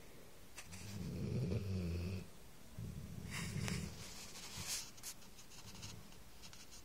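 A sleeping pet snoring: a low snore about a second in, a second snore mixed with a breathy hiss near the middle, then quieter breathing.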